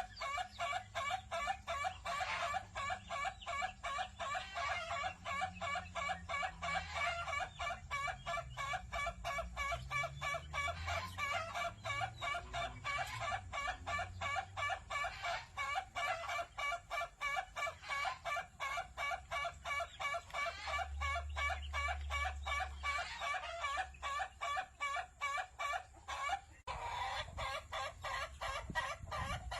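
Ayam Ketawa (Indonesian laughing chicken) crowing: a long, rapid, stuttering run of short notes that sounds like a human laugh. It breaks off briefly near the end.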